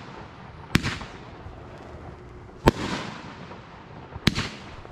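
A 12-shot RGS 'Wolfman' firework cake firing three shots, each a sharp bang from a shell bursting, followed by a short fading tail. The shots come roughly one and a half to two seconds apart.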